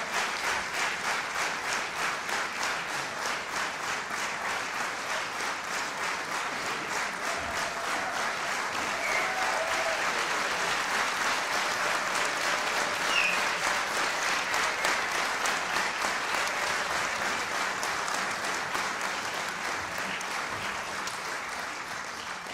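Audience and choir applauding, the clapping pulsing in a steady beat of about two to three claps a second and fading near the end.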